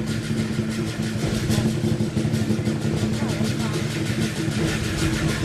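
Lion dance percussion: a big drum with clashing cymbals and a gong, playing a fast, steady beat.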